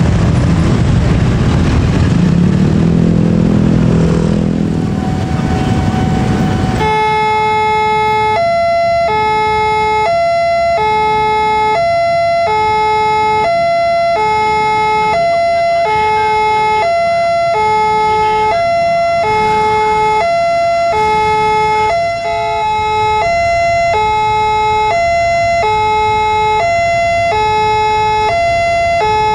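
Railway level-crossing warning alarm: an electronic chime of a high and a low note taking turns at a steady, even pace, loud and unbroken once it starts about seven seconds in. Before that, road traffic noise with the alarm fainter underneath.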